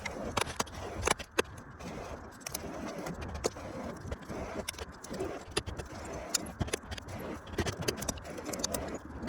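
Small wood-fired forge fed scrap softwood, with a hair dryer blowing air into it in a steady rush and the fire crackling and popping in frequent irregular snaps.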